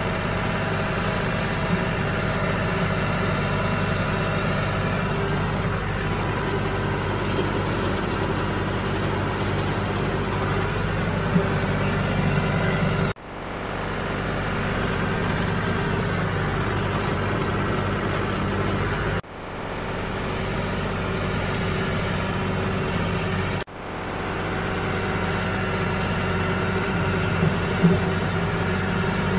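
John Deere tractor's diesel engine running steadily under way, heard from the driver's seat. The sound breaks off abruptly three times and comes back, where the footage is cut.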